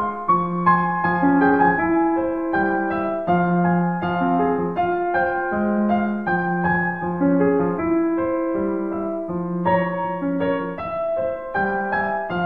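Background piano music, notes and chords changing about once a second.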